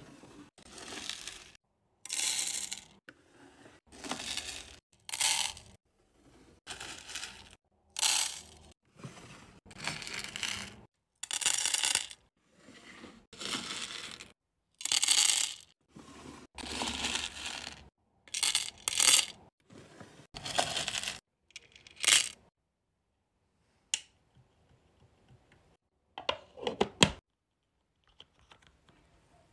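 Hard wax beads scooped with a metal scoop from clear plastic drawers and poured. The dry rattling pour repeats about once a second. The pours stop a little past twenty seconds, and a few light clicks and a short clatter follow near the end.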